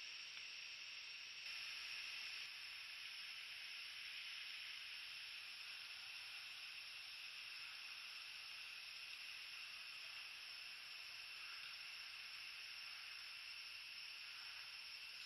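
Faint, steady, high-pitched chorus of night insects, an even hiss with no breaks.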